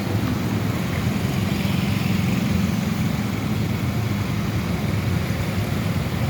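Road traffic on a flooded street: car and motorcycle engines running at low speed over a steady rushing noise, with no let-up.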